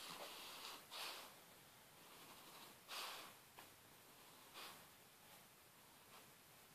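Sleeping puppy snoring: four faint, short noisy breaths, the loudest about one and three seconds in.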